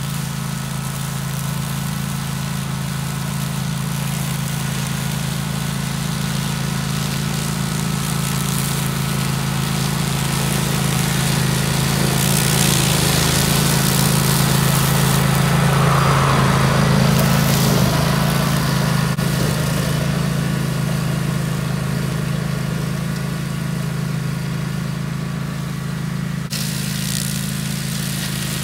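Kawasaki engine of a DR brush cutter running steadily on its replacement carburetor. It grows louder toward the middle and then eases back.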